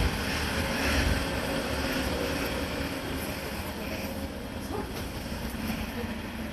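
Steady hum and rumble of a stationary 115-series electric train waiting at the platform with its doors open, heard first beside the train and then inside the carriage.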